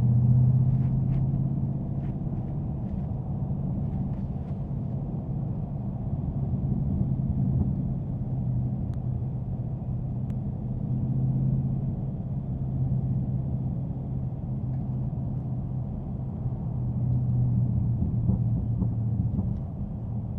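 A Dodge Scat Pack's 6.4-litre HEMI V8 droning steadily at cruise with road noise, swelling slightly a couple of times as the throttle changes.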